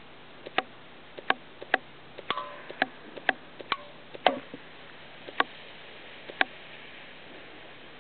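Airsoft M14 EBR rifle firing single shots at an aluminium can: about ten shots in six seconds at an uneven pace, many heard as a soft pop followed a split second later by a sharper tick of the BB striking the can, a couple of hits leaving a short metallic ring. The shooting stops about two thirds of the way through.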